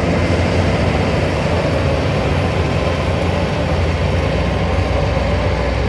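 Heavy diesel engine of earthmoving machinery running steadily, a continuous low drone with no breaks or changes.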